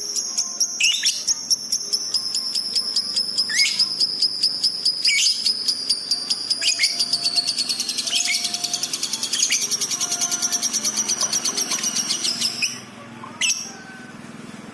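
Lovebird singing one long, fast, high-pitched trill with sharp chirps cut into it. The trill stops abruptly about three-quarters of the way through, and a couple of short chirps follow.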